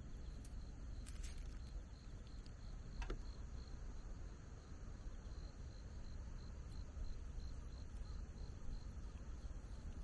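Crickets chirping: a high, steady pulsed trill of about four pulses a second, over a low rumble.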